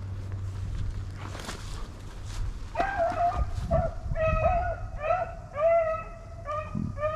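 Rabbit hounds baying on a rabbit's trail, starting about three seconds in and carrying on in a quick run of repeated, drawn-out calls: the pack giving tongue as it runs the scent.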